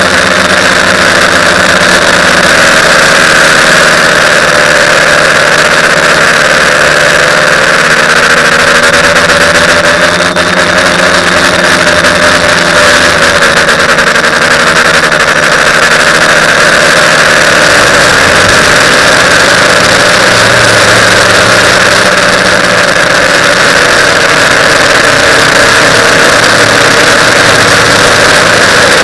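TBS Discovery quadcopter's motors and propellers buzzing in flight over a steady loud hiss, their pitch wavering up and down as the throttle changes.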